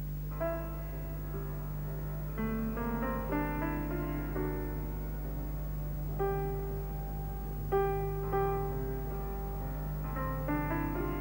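Piano playing the introduction to a song, with single notes and chords. A steady low hum runs underneath.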